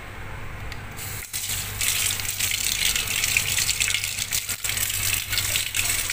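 Water running from a kitchen tap over a hand: a steady gushing splash that starts about a second in.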